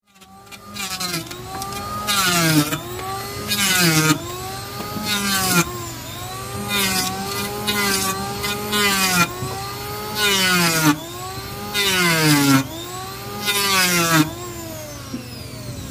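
Handheld electric power tool cutting wooden deck planks. The motor whines and sags in pitch each time it bites into the wood, then recovers, with a burst of rasping cutting noise on each pass every one and a half to two seconds.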